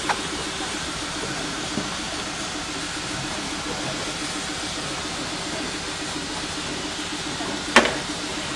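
Steady hissing noise with a faint low hum underneath, and one sharp knock near the end.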